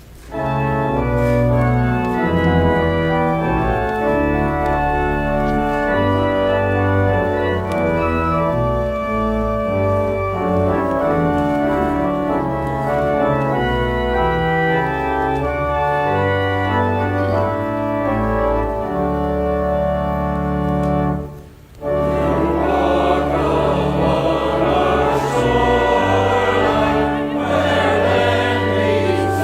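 Church organ playing the introduction to the closing hymn in sustained chords. After a short break about two-thirds of the way in, the organ comes back fuller and the congregation joins in singing the hymn.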